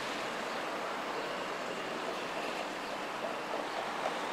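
Steady rushing street noise as an Alstom Citadis tram rolls slowly along curved track, with passing road traffic.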